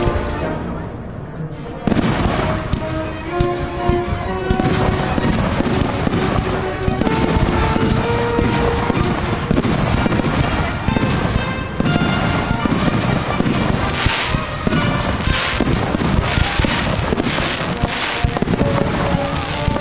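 Aerial fireworks shells bursting, with repeated sharp bangs that come thick and fast from about two seconds in, heard together with music playing a melody.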